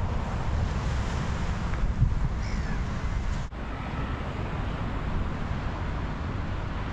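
Wind blowing hard on the microphone, a steady low rumble, with a faint bird call about two and a half seconds in.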